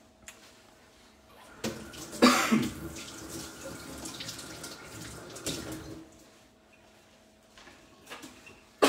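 Water running, as from a tap, for about four seconds, starting a couple of seconds in. A sharp knock near the end.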